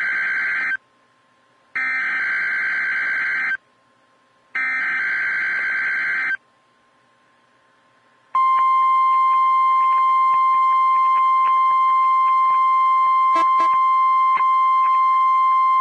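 NOAA Weather Radio Required Weekly Test signal: the end of the first burst and then two more bursts of the warbling SAME digital header, each about two seconds long, separated by short gaps. After a pause of about two seconds, the steady 1050 Hz warning alarm tone starts about eight seconds in and holds.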